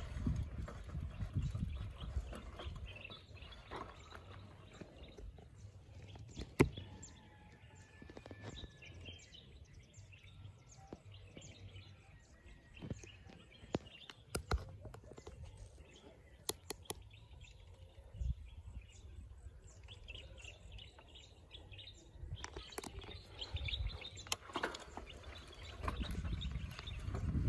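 Faint outdoor background noise with a low rumble, scattered clicks and knocks, and a few brief bird chirps; a sharp knock about six and a half seconds in is the loudest sound.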